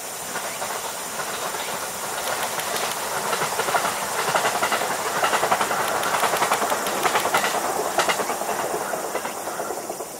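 E531-series electric train passing by. Its wheels clatter in rapid clicks over the rail joints, building to a peak around the middle and fading away near the end.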